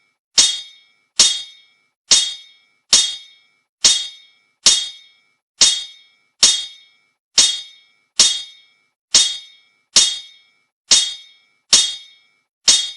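A metallic clang sound effect looped at an even pace, a little more than one strike a second. Each strike rings briefly and dies away.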